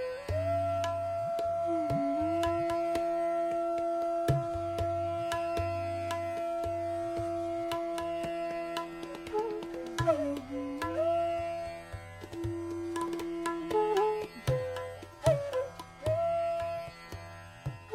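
Hindustani classical music: a bansuri flute plays long held notes with slides between pitches in raga Bhopali, over tabla strokes.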